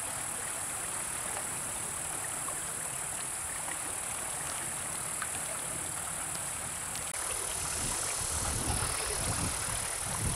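Steady rush of a river flowing over rocks, with a constant high insect drone above it; about seven seconds in the water noise grows a little louder and deeper.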